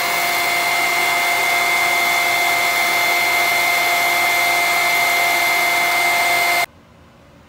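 Electric centrifugal pump running steadily with a whine, circulating vinegar through a flat plate heat exchanger to flush out scale, the return rushing into a metal bucket where it froths. The sound cuts off suddenly near the end.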